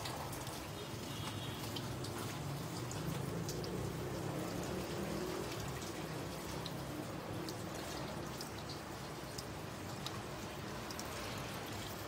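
Water dripping and trickling from a white T-shirt being dipped in dye for tie-dyeing: scattered drips over a steady wash of noise.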